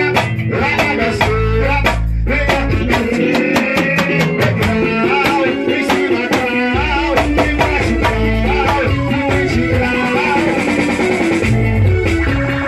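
Live band music: a drum kit keeping a steady beat under guitar and other pitched instruments.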